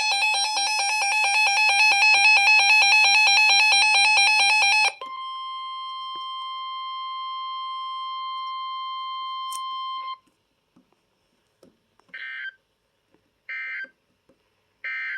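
Emergency weather-alert tones from a weather radio. A loud, fast warbling electronic alarm sounds for about five seconds. It switches to a steady single-pitch warning tone that lasts about five more seconds and cuts off suddenly. Near the end come three short, evenly spaced bursts of digital alert data.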